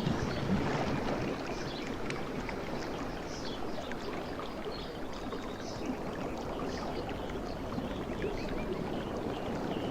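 Sea waves washing steadily, with many short high chirps scattered through.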